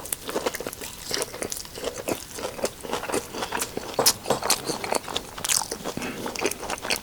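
Close-miked chewing and crunching of air-fried cauliflower buffalo wings: a quick, irregular run of crisp crunches and wet mouth sounds.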